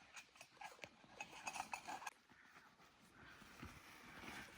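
Soft footsteps of a walker on a dirt trail: a quick run of light steps and ticks in the first two seconds, then fainter.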